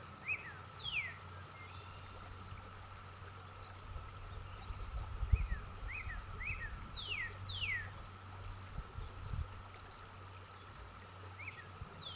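Outdoor nature ambience: birds calling with short chirps and several quick descending whistles, over a steady low rumble and faint hiss.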